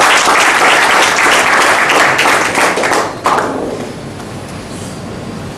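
Audience applauding with many hands clapping, dying away about three seconds in.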